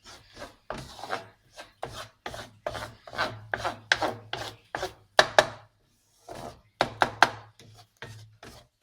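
A spatula scraping a pan in quick repeated strokes, about two or three a second with a short pause past the middle, as a thick cashew-and-sugar paste for kaju katli is stirred on low heat until it comes away from the pan.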